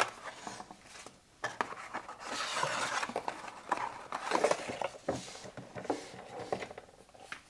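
Cardboard and paper rustling and scraping as a watch box is unpacked and its inner box slid out of the sleeve, with scattered light clicks and a knock about five seconds in as the box is handled on a wooden table.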